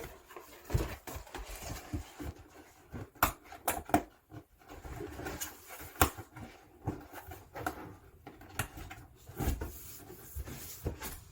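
Handling noises from unpacking a model kit: cardboard boxes and bagged plastic parts being moved and set down, giving irregular light knocks and clicks over a low rustling.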